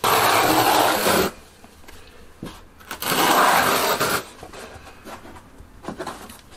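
Notched steel trowel dragged through wet mortar on a plywood subfloor: two long scraping strokes, each about a second long, roughly two seconds apart.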